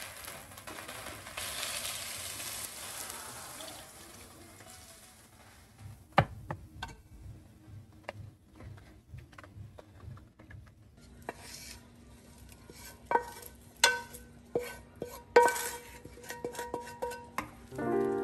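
Water poured into a hot pot of browned lamb sizzles and hisses for the first few seconds, then dies down. Later, a spatula scrapes and knocks against pans in a run of sharp, ringing clinks.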